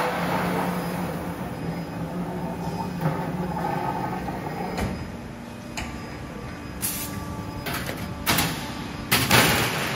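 A CNC four-roll plate rolling machine runs with a steady hum as it rolls galvanized steel sheet. In the second half come several sharp sheet-metal bangs and clatters, the loudest near the end, as rolled cylinders come off the rolls onto the table.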